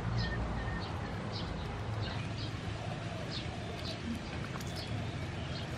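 Birds chirping in the background: short, high chirps come every second or so over a steady low background hum.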